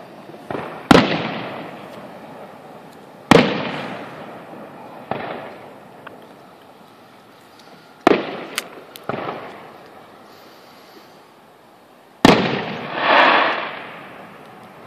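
Aerial fireworks shells bursting: four loud bangs a few seconds apart with smaller pops between them, each bang trailing off in a long rolling echo. Just after the last bang a rush of noise swells and fades.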